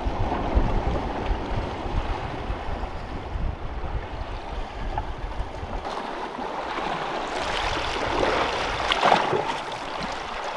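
Wind rumbling on the microphone, then from about six seconds in, sea water lapping and splashing against shoreline rocks, swelling near the end.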